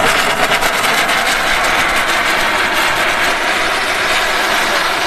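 A loud, steady rushing hiss from a jet of white vapour blasting up out of an SUV's open engine bay, with a fast flutter in it.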